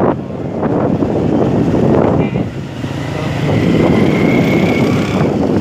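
Wind rushing over the microphone while riding a motorbike, with the bike's engine running underneath.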